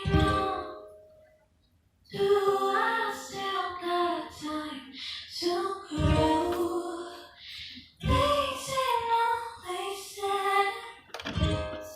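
A young woman singing a slow, soft song in phrases, with short pauses between them.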